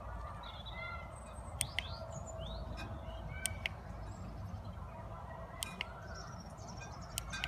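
Birds chirping, with several sharp clicks, some in quick pairs, over a steady low rumble.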